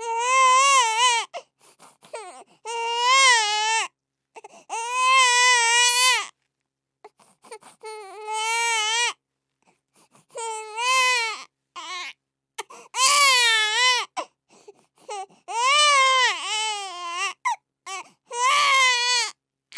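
Baby crying: about eight wails of a second or so each, with a wavering pitch and short breaths between them.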